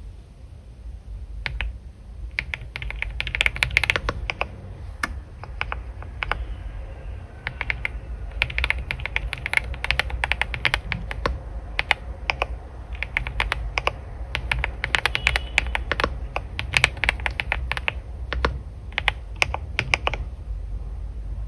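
Computer keyboard typing in quick irregular runs of keystrokes, with a short pause partway through and stopping near the end, over a steady low hum.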